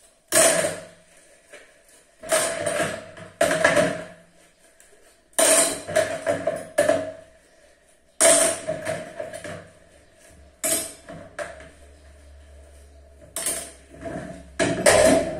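Dishes, metal bowls and pans clattering as they are handled and set down, in a string of separate knocks and rattles, some with a short metallic ring.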